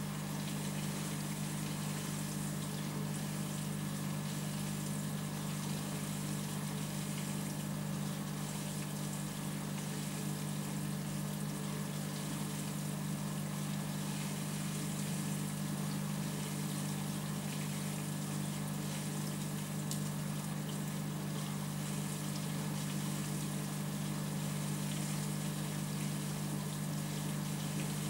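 Aquarium pump humming steadily, with an even hiss of moving water.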